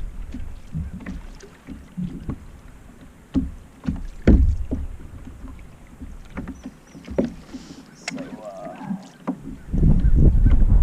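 Water knocking and splashing irregularly against a kayak hull, with wind rumbling on the microphone that grows heavy near the end.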